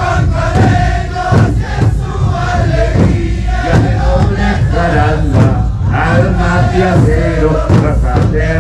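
A sikuris troupe playing: many siku panpipes sounding together in shifting pitches over a regular beat of bass drums.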